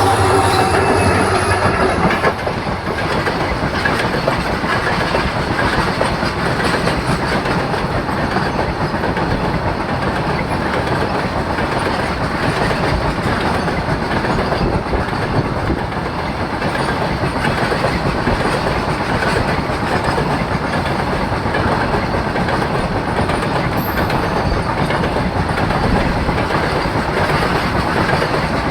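A passenger train's coaches rolling past close by: a steady, loud rumble of steel wheels on the rails with clickety-clack over the rail joints. A low hum, likely the locomotive, fades out about two seconds in.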